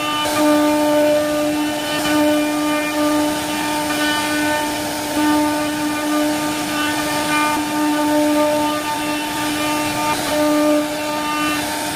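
CNC wood carving router's spindle running as it cuts, a steady whine over a hiss of cutting, swelling and easing slightly in level.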